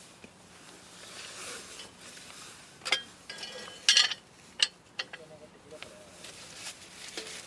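A few sharp metallic clinks and knocks of camp cookware being handled, the loudest cluster about four seconds in, with a short ring after the strikes.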